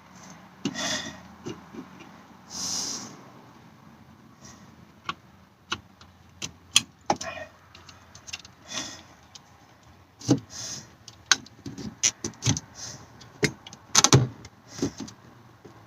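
Scattered plastic clicks, taps and brief rustling of hands fitting a replacement power window switch and pushing its wiring plug home. The clicks come thicker near the end.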